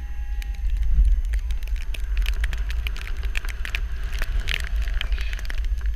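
Snowboard carving through deep powder snow, with a steady low rumble of wind buffeting the action camera's microphone. Scattered short crackles of snow against the board and camera come thicker from about two seconds in.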